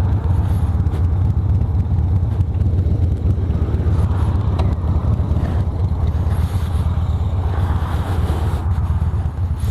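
Harley-Davidson V-twin motorcycle engine running steadily, with no change in revs.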